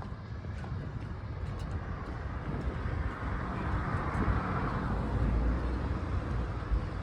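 Road traffic: a steady low rumble, with a vehicle swelling past around the middle.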